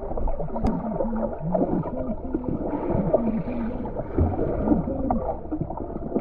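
Muffled underwater sound picked up by an action camera submerged in a spring: water moving and bubbling against the housing, with short low hums and squeaks that step up and down in pitch and a few sharp clicks.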